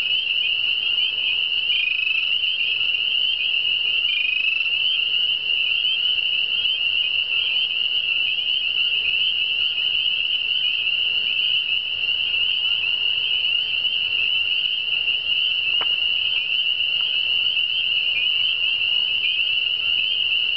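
Dense chorus of spring peepers: many high, short, rising peeps overlapping into one continuous high-pitched band of sound.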